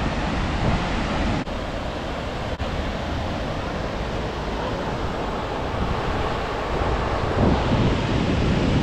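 Ocean surf washing onto a beach, with wind buffeting the microphone. The surf swells louder near the end.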